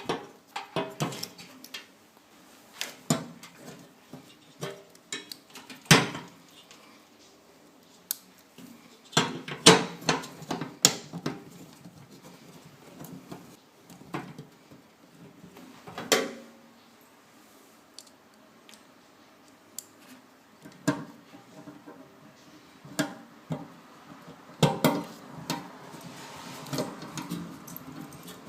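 Irregular clinks, clicks and knocks of small hard parts and tools being handled, as in taking a microwave oven apart; sharp ones come about six seconds in and around ten to eleven seconds.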